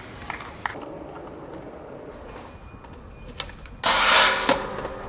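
Skateboard grinding down a metal stair handrail: a sudden loud metallic scrape with a ringing tone about four seconds in, lasting under a second and ending in a sharp crack. Before it, quieter rolling noise with a few light clicks.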